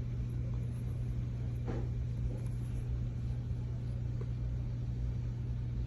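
Steady low hum over faint even background noise: room tone with no distinct event.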